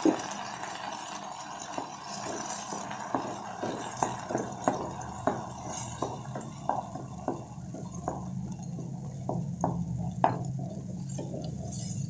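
A spatula stirring and knocking against a nonstick kadai as freshly added ground masala paste fries in oil with a soft sizzle. The knocks come about twice a second, and the sizzle thins near the end while a low steady hum joins about halfway through.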